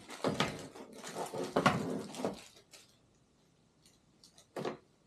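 Packaging rustling and crinkling as small parts are handled and unwrapped for about three seconds, then a few light clicks and a short rustle near the end.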